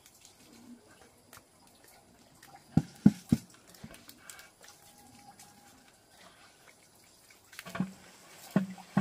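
Hollow knocks: three sharp knocks close together about three seconds in, then a run of regular knocks, about three a second, starting near the end.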